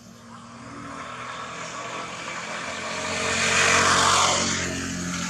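A motor vehicle passing by. Its engine noise grows louder to a peak about four seconds in, then fades as it drops slightly in pitch.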